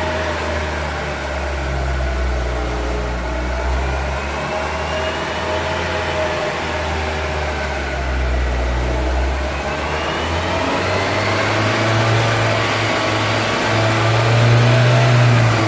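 Lada Granta engine revving through its automatic gearbox, spinning a jacked-up front wheel in the air to check it for imbalance, with a whine that rises twice as the wheel speeds up.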